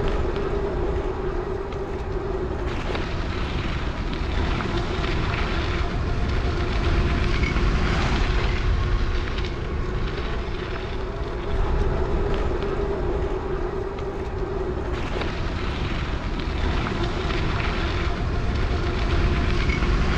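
Wind rushing over the microphone with a steady motor whine underneath while riding the oraimo Monster 100 e-bike, whose motor is rated at 350 watts.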